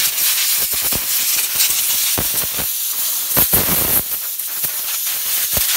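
Compressed-air blow gun on an air-compressor hose blasting a loud, continuous hiss over a bolt-action rifle bolt, blowing out solvent and carbon residue after cleaning.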